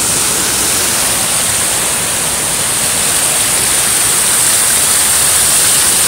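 Loud, steady rush of floodwater pouring over an overflowing spillway.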